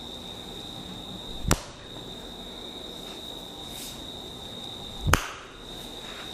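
Two sharp slaps from a head and body massage, about three and a half seconds apart, each with a brief lead-in, over a steady high-pitched whine.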